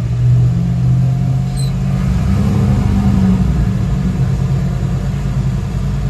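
Twin inboard engines of a 1995 Sea Ray 400 cruiser idling with a steady low rumble, the note lifting briefly about two to three seconds in.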